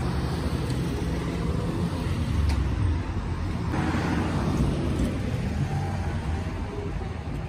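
Town street traffic: car and truck engines running low and tyres on the road. A pickup truck passes close about four seconds in.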